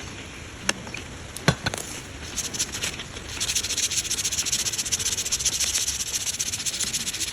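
A few sharp taps, then from about three seconds in a steady, fast rasping hiss of a tool working wood.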